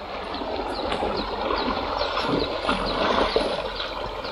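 River water rushing steadily, with a short high chirp repeating about three times a second above it.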